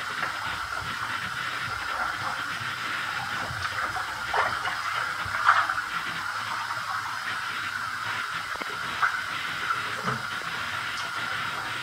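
Water running from a tap into a bathtub with a steady rush, broken by splashes as a person moves in the shallow water among boots; the loudest splash comes about five and a half seconds in, with smaller ones around four and a half, nine and ten seconds.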